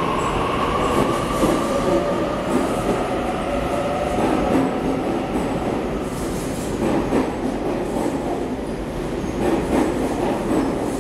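Double-deck Sydney Trains electric train running past along the station platform: a steady rumble with a faint whine that slowly falls in pitch.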